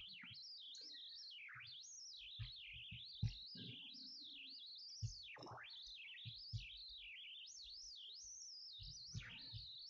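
A faint, high warbling tone that wavers up and down without a break, with a few soft clicks.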